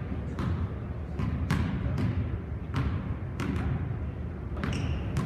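Basketballs bouncing irregularly on a hardwood gym floor, each bounce echoing through the gym.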